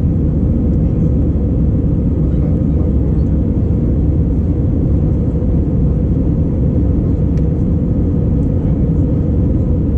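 Steady cabin noise of an Airbus A319 in flight: the deep, even rumble of its CFM56 engines and of air rushing past the fuselage, heard from a window seat beside the wing.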